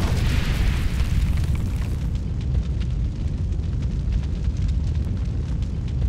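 Cinematic logo-reveal sound effect: a deep, steady rumble with faint scattered crackles, and a hissing swell that fades within the first second or two.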